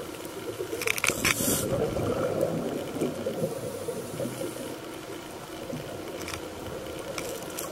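Underwater recording of a scuba diver breathing through a regulator: a short hiss of inhaling about a second in, then a few seconds of bubbling as the breath is let out, and another hiss near the end.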